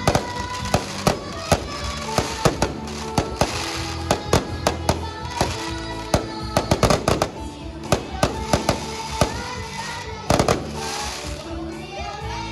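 Aerial fireworks bursting in a rapid, irregular string of bangs over music. The bangs die away near the end.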